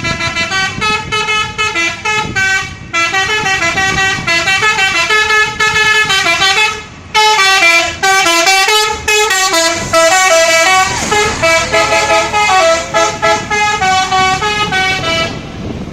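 Indonesian bus 'telolet' musical air horn playing a quick tune of short, stepped notes, with a brief pause about seven seconds in.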